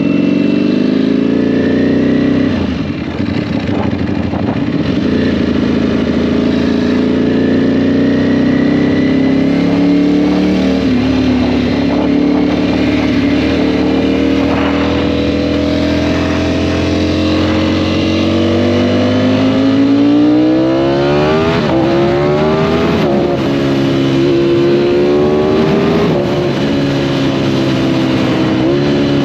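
Motorcycle engine running under way, its pitch climbing slowly as it pulls through the gears, with a drop about a third of the way in. Past the middle it revs up faster and drops back several times, as with quicker throttle openings and gear changes.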